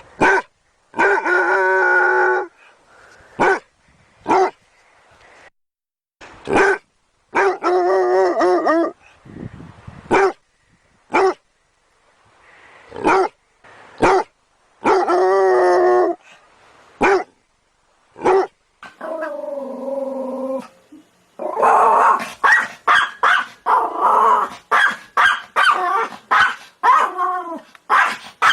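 Dog barking: short single barks mixed with long, wavering drawn-out cries, separated by abrupt silences, then a quick run of many barks over the last several seconds.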